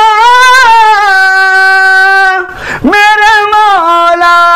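A man singing long held notes of a devotional song, the pitch bending slightly upward early on. About two and a half seconds in he breaks for a quick breath, then slides into a lower held note.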